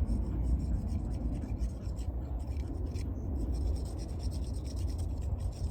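PVC pipe cleaner being rubbed onto a PVC pipe and fitting with the can's dauber, a soft irregular scratching, over a steady low rumble.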